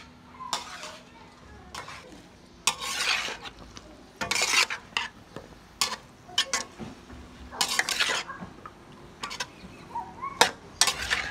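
Metal spatula scraping and clanking against a steel wok in irregular strokes as cauliflower, carrot and meat are stir-fried, with the food sizzling underneath.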